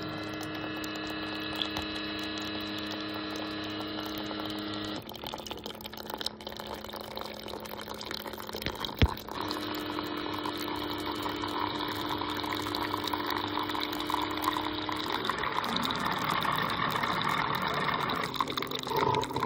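Single-serve coffee maker pumping hot water out of its spout in a stream into a ceramic mug: a steady pump hum under the splash of the pouring water. The hum drops away about five seconds in and comes back, with one sharp click near nine seconds. The watery hiss grows louder toward the end.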